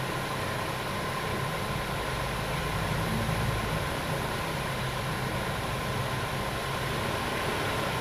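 Steady background hum and hiss of a running machine, with a faint constant high whine; no clicks or beeps stand out.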